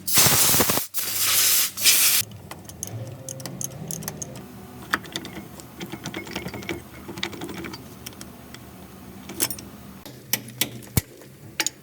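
A loud hiss for about two seconds, then scattered light metallic clicks and taps from hand work on truck gearbox parts.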